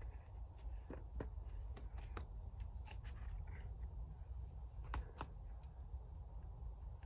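Scattered faint scuffs and taps of a climber's hands and shoes on rock holds, about ten over a few seconds, over a steady low rumble.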